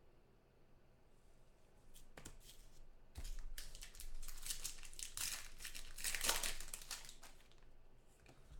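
Plastic-foil trading-card pack wrapper being torn open and crinkled by hand. Quiet for about two seconds, then a few seconds of crinkling that fades near the end.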